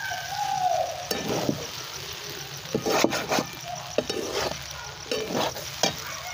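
Metal spatula stirring and tossing noodles and fried chicken in a metal kadai, scraping and clanking against the pan at irregular moments over a light sizzle. A short cry falling in pitch sounds near the start.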